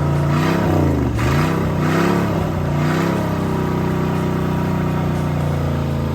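Freshly overhauled Chrysler 360 V8 marine engine running on test, revved briefly twice in the first three seconds and then settling back to a steady idle.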